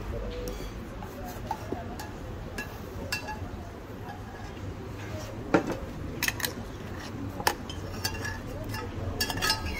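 Metal serving spoons clinking and scraping as pasta is tossed inside a hollowed-out Parmigiano-Reggiano cheese wheel. A scattered run of sharp metal clinks thickens in the second half, the loudest about five and a half seconds in, while pasta is spooned out of a copper pan.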